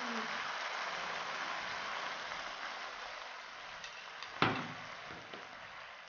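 Steak gravy sizzling on a hot iron sizzling plate just after being ladled over the noodles, a steady hiss that slowly dies away. A single sharp knock comes about four and a half seconds in.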